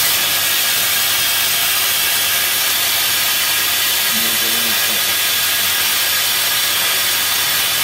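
Steady hiss from a brazing machine heating a copper fitting, with a low steady hum underneath.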